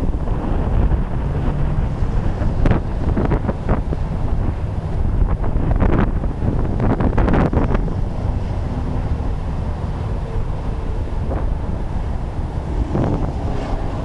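Strong gusty monsoon wind buffeting the microphone: a heavy low rumble with sharper gusts in the first half, easing a little after about eight seconds.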